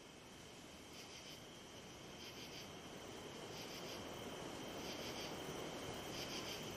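Crickets chirping in short pulsed trills about once every second and a quarter, over a hiss of night ambience that slowly grows louder.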